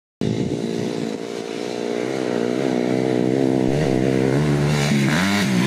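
Four-stroke single-cylinder dirt bike engine running under throttle as the bike comes closer, the note steady and slowly growing louder, then rising and falling with throttle changes near the end.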